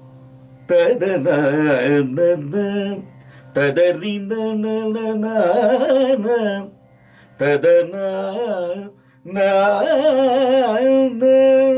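A man singing phrases of Carnatic Kapi raga, his voice sliding and wavering through ornamented notes, in four phrases with short pauses between them, over a steady drone.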